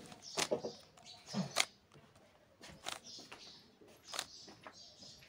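A plastic 3x3 Rubik's-type cube being turned by hand, one layer at a time: a sharp click about every second and a bit, four in all, with light plastic scraping between them.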